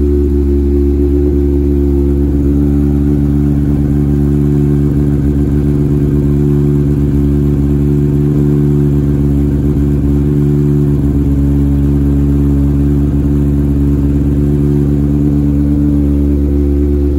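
Toyota 4A-GE 1.6-litre 16-valve four-cylinder race engine idling steadily at an even, unchanging pitch.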